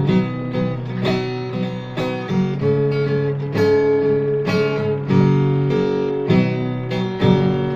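Acoustic guitar strummed, a new chord struck roughly every second. The last chord, struck near the end, is left to ring.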